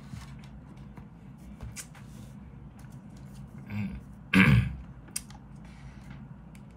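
A man clears his throat once, loudly and briefly, a little after four seconds in, amid scattered light clicks of a plastic spoon and fork against a plastic food container while he eats.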